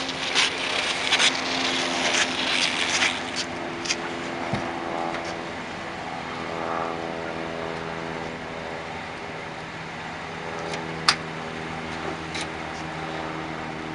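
Shoes scuffing and a body being dragged on pavement for the first few seconds, then one sharp click about eleven seconds in as the car's trunk latch pops open, over a steady low drone of held tones.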